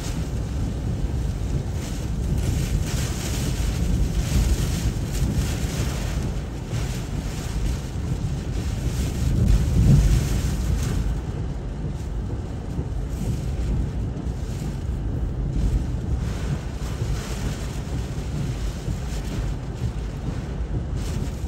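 Hurricane-force eyewall wind of Hurricane Ian, near 145 mph, with wind-driven rain, blasting the microphone in a continuous heavy rush that swells and eases in gusts, the strongest about ten seconds in.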